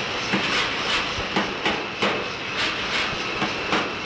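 Forge-shop machinery noise: a steady roar with irregular sharp metallic clanks and knocks, two or three a second.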